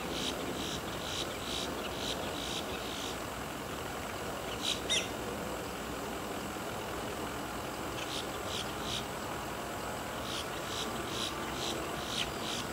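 The Basler BT-67's Pratt & Whitney PT6A turboprop engines running at low power far off, heard as a steady distant noise. Over it come short runs of high chirps, a few a second, and one louder sweeping bird call about five seconds in.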